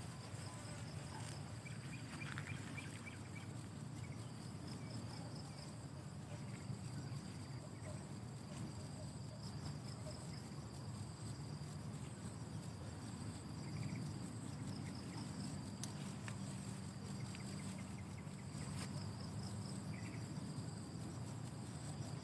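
Insects trilling steadily in a rapid pulsing high buzz, over a steady low rumble.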